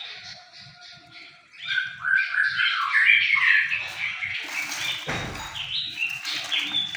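Songbirds chirping and twittering in a busy, overlapping chatter that grows louder about a second and a half in, with a short rustling burst about five seconds in.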